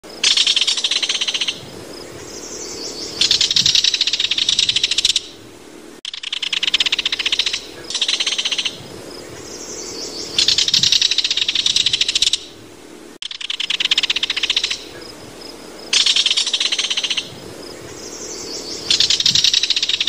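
White-throated kingfisher calling: loud, rapid rattling bursts of one to two seconds each. The same stretch repeats about every six and a half seconds.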